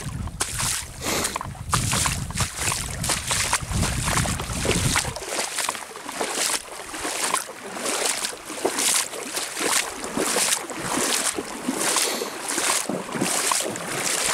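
Wading footsteps of a person in waders walking through shallow water, with a slosh and splash at each stride, about two a second. Wind rumble on the microphone for roughly the first five seconds.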